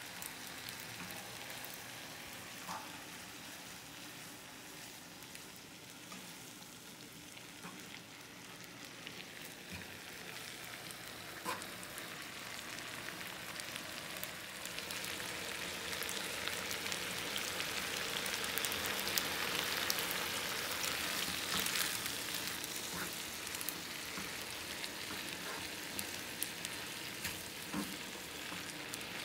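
Starchy pasta water and butter simmering and sizzling in a frying pan around spaghetti as the pasta finishes cooking, the sizzle growing louder about halfway through. A few light clicks of metal tongs against the pan.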